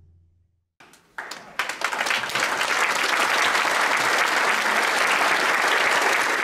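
Concert audience applauding: after the band's last low note dies away and a brief silence, the clapping breaks out about a second in, swells quickly and holds steady.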